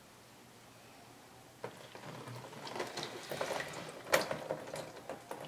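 Quiet for about the first second and a half, then irregular light knocks, clicks and rustles as a wet acrylic-pour canvas is lifted and tilted over a wire rack, with one sharper knock about four seconds in.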